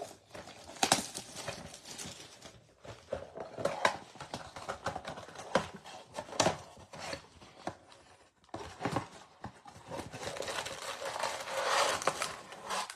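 Plastic wrapper being torn and crinkled off a box of trading cards, then the cardboard box being opened. The sound is irregular sharp crackles, snaps and rustles, with a longer stretch of crinkling near the end as the foil-wrapped packs inside are handled.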